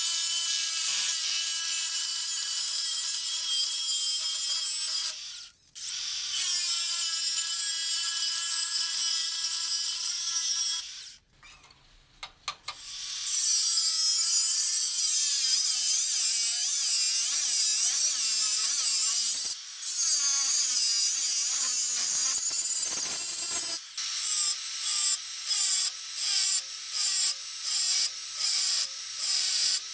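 Angle grinder cutting steel with a high whine, first through a steel tube, then scoring grooves into a steel bar. The sound breaks off briefly twice in the first half, its pitch wavers as the disc bites, and in the last few seconds it comes in short repeated cuts, about one and a half a second.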